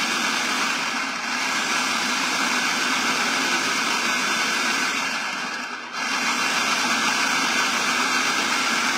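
Food processor motor running steadily while olive oil is drizzled into the herb dressing through the feed tube to emulsify it; the sound dips briefly once about six seconds in.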